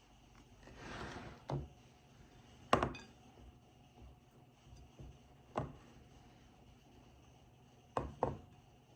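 Kitchen work sounds: a brief rustle, then a few scattered knocks and clunks of dishes and utensils on a counter, the sharpest about three seconds in and two close together near the end.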